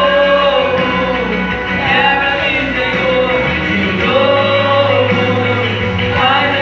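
A small vocal group singing a gospel song together, several voices carrying the melody, over an accompaniment with a steady bass line.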